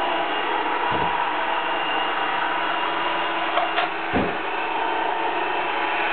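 Roomba robot vacuum running, a steady motor whir and whine from its brushes and suction, with a low bump about a second in and another about four seconds in.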